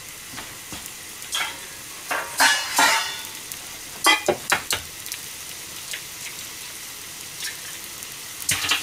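Pot-au-feu sizzling and bubbling in a small katsudon pan over a high gas flame, a steady hiss with a few short, sharp pops and clicks between about one and five seconds in and again near the end.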